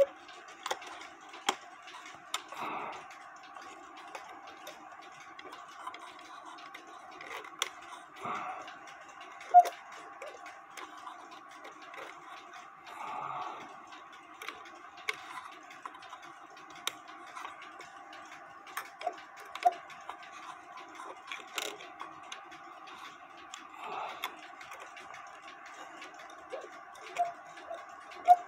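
Scattered sharp clicks and light knocks from hands working on an old cuckoo clock's mechanism, with a few softer rustles, over a faint steady hum.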